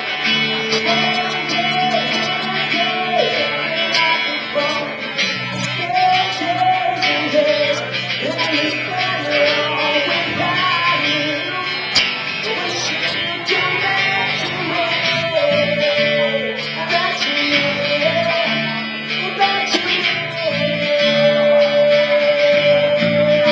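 Live guitar band music with no drums: guitars strumming chords under a melody line that is held long near the end.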